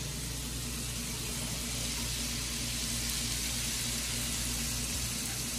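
Diced sweet potato, onion and bell pepper sizzling in bacon fat in a skillet: a steady frying hiss, with a low hum underneath.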